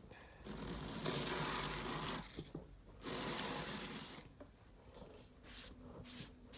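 Handling noise: two bursts of rubbing and rustling, the first about two seconds long and the second about one, followed by a few light taps near the end.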